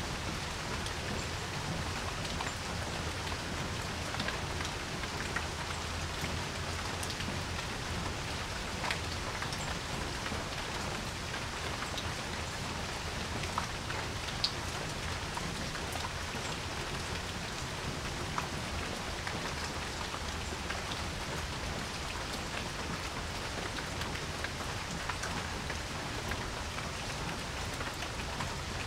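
Steady rain falling on a porch, a constant hiss with scattered individual drops ticking nearby; two drops about 13 and 14 seconds in stand out as the loudest.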